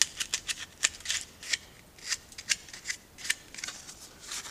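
Small leftover bits of plastic being snapped and pulled off the inside of a thin plastic wingtip strobe adaptor by hand, with the shell flexing: an irregular run of sharp clicks and crackles, several a second.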